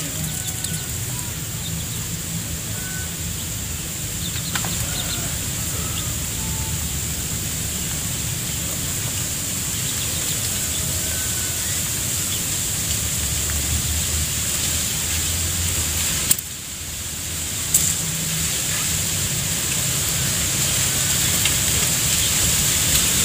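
Outdoor garden ambience with a flock of chickens: faint short clucks and calls now and then over a steady high-pitched hum and a low rumble. The sound dips sharply about two-thirds of the way through, followed by a couple of sharp clicks.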